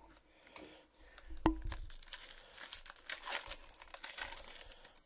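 Trading-card pack wrapper being torn open and crinkled by hand: a bump about a second and a half in, then a run of crackling that fades near the end.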